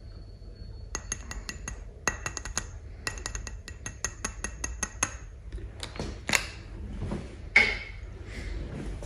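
Fingers tapping and clicking on a Nivea Men after-shave balm bottle: quick runs of sharp clicks, each with a short ringing note, for about four seconds. A few separate louder knocks follow near the end.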